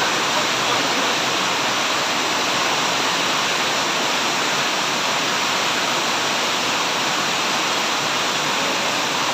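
Heavy rain pouring down in a storm, a steady dense hiss.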